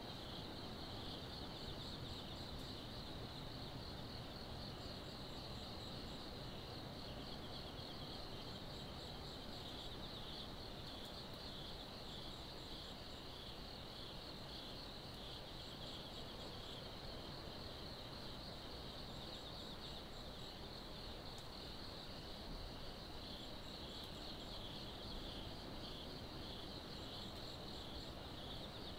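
Insects chirping steadily at night, with a second, higher-pitched insect trilling briefly every few seconds, over a low, even hum of distant background noise.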